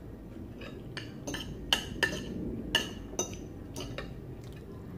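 Metal spoon and fork clinking and scraping on a ceramic plate of rice, with about seven short, sharp clinks spread over a few seconds.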